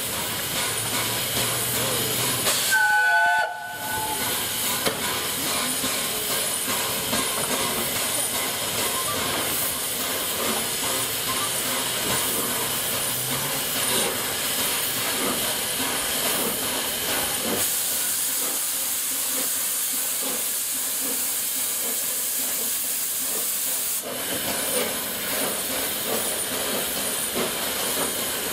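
Steam locomotive 60163 Tornado, a three-cylinder Peppercorn A1 Pacific, standing with steam hissing steadily. A brief high tone sounds about three seconds in, and the hiss grows sharper for several seconds past the middle.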